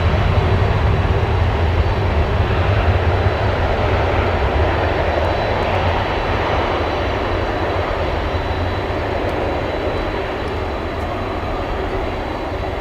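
Boeing 747-400F's four jet engines at takeoff thrust: a loud, steady roar that slowly fades as the aircraft moves away.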